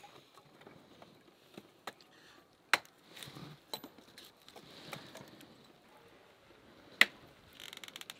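Kitchen work: a few sharp knocks and light clicks of utensils on hard surfaces, the two loudest about three and seven seconds in, with a quick clatter near the end.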